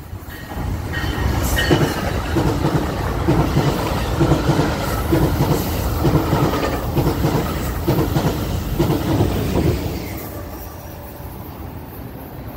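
Electric commuter train passing close by, its wheels clicking over the rail joints in a steady rhythm; the sound fades away after about ten seconds.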